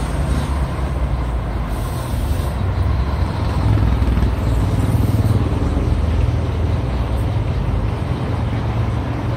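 Low rumble of street traffic, swelling in the middle and easing off toward the end.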